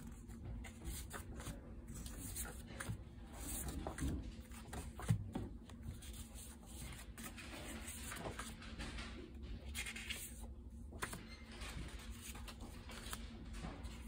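Loose paper notecards being leafed through by hand, the card stock rustling and flicking as each card is lifted, with one low thump about five seconds in.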